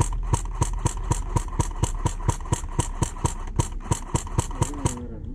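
Airsoft electric rifle firing single shots in quick succession, a sharp click about four times a second over a steady whine, stopping about five seconds in.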